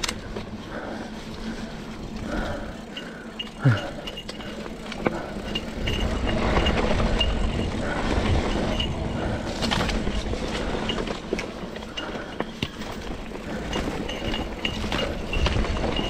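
Mountain bike rolling downhill over a loose dirt and gravel trail: tyres crunching over stones, with knocks and rattles from the bike over bumps. It gets louder over the rockier stretch from about six seconds in.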